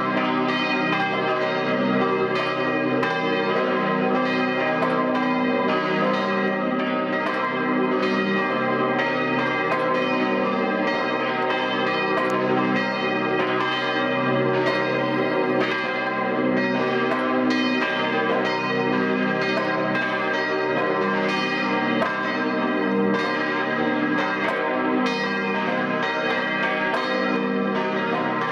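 Church bells pealing: several swinging bells strike over and over, their tones overlapping into a dense, continuous ringing.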